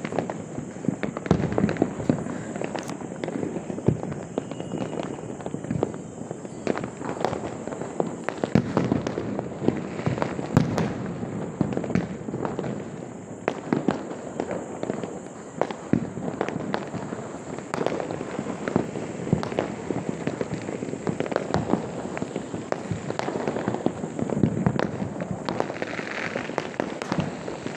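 Many fireworks going off at once: firecrackers and rockets bursting in a dense, irregular string of pops and bangs, with no let-up, a few bangs standing out louder than the rest.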